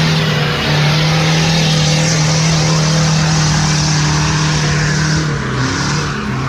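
Off-road 4x4's engine revving hard and held at a steady high pitch, with a slight step up about half a second in and a drop near the end, under a dense hiss of engine and brush noise.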